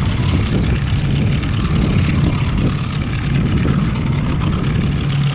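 Small outboard motor running steadily at trolling speed, a constant low hum with a rushing noise over it.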